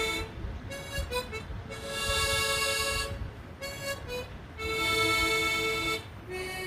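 Harmonica playing a slow melody, long held chords alternating with shorter notes, with brief breaths between phrases.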